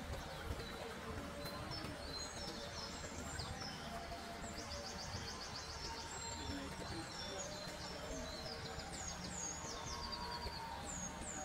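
Several small songbirds singing and chirping over a steady low background rumble, with a rapid trill about halfway through and a few quick downward-swooping notes near the end.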